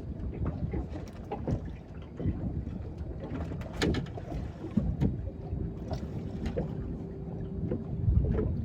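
Water slapping and lapping against the hull of a small boat, with wind rumbling on the microphone and scattered light knocks. A faint steady hum runs through the second half.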